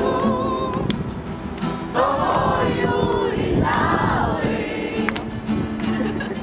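A large group of young voices singing a song together in unison, accompanied by acoustic guitar, in sung lines with short gaps between them.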